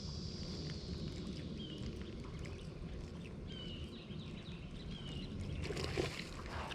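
Outdoor ambience with a steady low rumble, and a bird giving a short chirp every couple of seconds. A brief rush of noise comes near the end.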